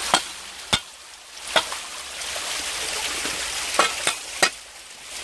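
Creek water trickling through rocks as a steady hiss, with about six sharp clicks and knocks scattered through it, three of them close together near the end.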